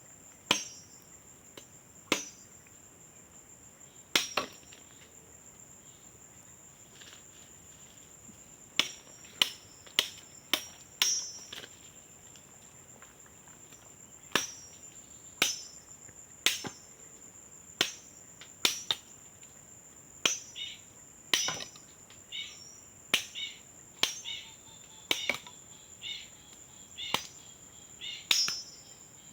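Repeated sharp strikes of a metal farm tool, irregularly spaced and more frequent in the second half, each with a short metallic ring, over a steady high-pitched insect trill.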